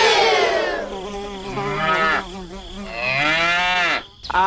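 Cow mooing, about three moos: one at the start that falls in pitch, a short one about halfway, and a longer one near the end that rises and then falls.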